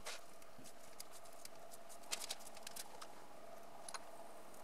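Faint scattered light ticks and rattles of star-shaped sprinkles being shaken from a small container, with a small cluster of ticks about two seconds in, over a faint steady hum.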